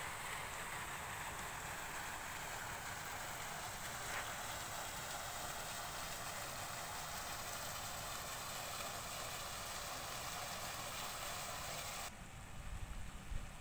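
Steady outdoor hiss of ambient noise with no distinct events. It changes abruptly about twelve seconds in to a quieter background with a few low bumps.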